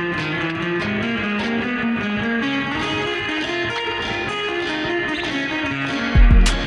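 Background music: a melodic electric guitar line, with heavy deep bass hits coming in near the end.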